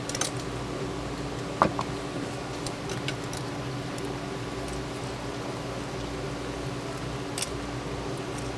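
Steel scissors clicking and scraping against a horned turban's shell as the meat is pried out, a few sharp clicks over a steady background hum.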